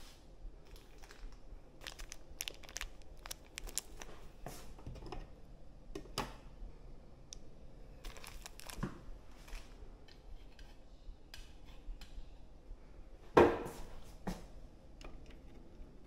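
Crinkling and tearing of a small clear plastic parts bag being opened by hand: scattered sharp crackles, with one louder thump near the end.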